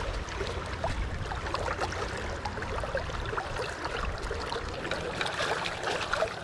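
River current running steadily, with small scattered splashes and trickles in the water.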